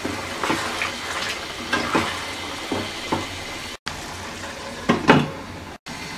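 Spiced potato curry sizzling in a non-stick pan while a wooden spatula stirs and scrapes through it, with scattered short knocks and scrapes. The sound drops out briefly twice.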